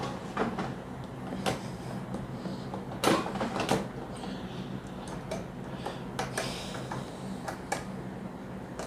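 Inalsa air fryer's plastic basket drawer being slid and pushed, with scattered plastic knocks and clicks, the loudest about three seconds in. The basket will not latch: its release button has stuck down.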